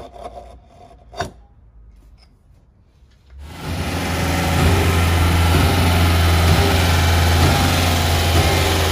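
A few light knocks and rubs from anchor bolts being set in a wooden template, with one sharp knock about a second in. About three and a half seconds in, a trailer-mounted concrete line pump's engine comes in suddenly, running loud and steady with a strong low hum.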